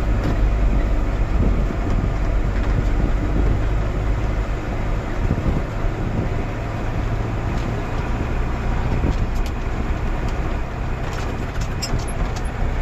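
A farm vehicle's engine running steadily, with a low hum under a rough, noisy wash.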